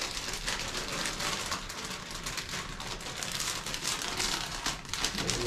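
Clear plastic packaging bag crinkling as it is opened and handled, a dense run of small crackles.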